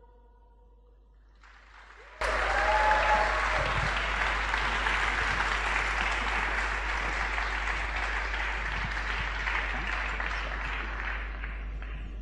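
Theatre audience applauding. It breaks out suddenly about two seconds in, after the last sung note dies away and a short hush, then carries on steadily and eases off slightly near the end.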